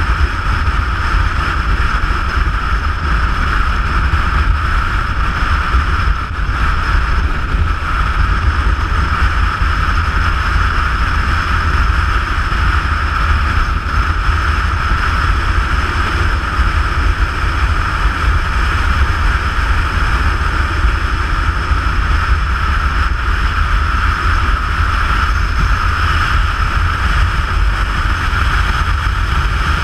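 Motorcycle riding at steady road speed, heard from an onboard camera: a continuous rush of wind and engine noise, heaviest in the low rumble, with no change in pace.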